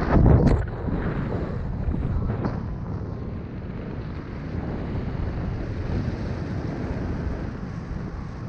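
Airflow buffeting the microphone of a camera on a paraglider pilot in flight: a steady low rush of wind noise. A louder burst with a couple of sharp knocks comes in the first half second.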